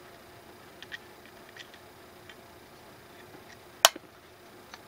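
Light clicks and taps of small screws and hand tools being handled while fitting an accessory rail to an AR-15 handguard, with one sharp, louder click a little before 4 seconds in. A faint steady hum sits underneath.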